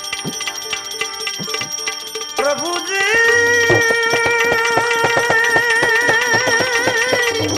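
Live devotional bhajan music: tabla strokes with short instrumental notes. About two and a half seconds in, a voice slides up into one long held note with vibrato over the continuing tabla.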